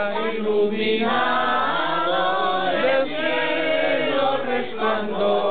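A mixed choir of men and women singing a song in Spanish, with the word "iluminado" sung about two seconds in.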